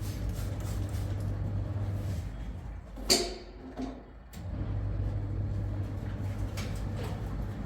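A steady low hum that stops after about two seconds and comes back about four seconds in, with a sharp knock and a smaller one in the gap.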